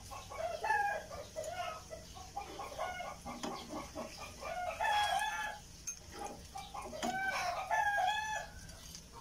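Chickens clucking and a rooster crowing, the calls coming in repeated runs with short pauses between.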